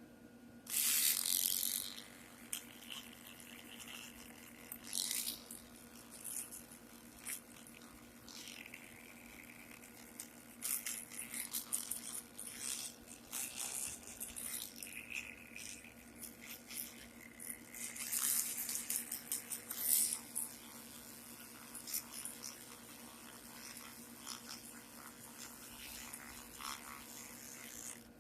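Old toothbrush with a little oil on it scrubbing the metal parts of an antique sewing machine in irregular strokes, with scattered clicks and rattles as the parts are handled.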